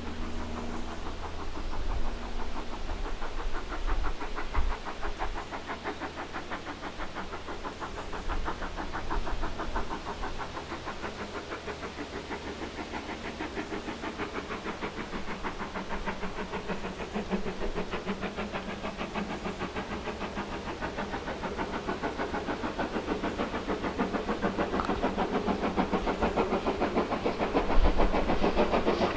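Steam locomotive approaching under power: a steady run of exhaust chuffs that grows gradually louder.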